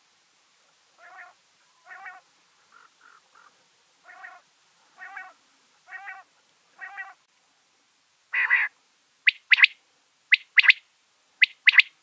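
Male common quail calling: about seven soft nasal notes roughly once a second, then from about eight seconds in the loud, sharp notes of its song in quick pairs.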